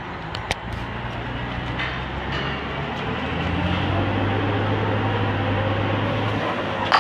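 Workover rig's diesel engine running steadily while tripping pipe, growing louder and changing pitch about three seconds in as it takes load; a sharp knock about half a second in.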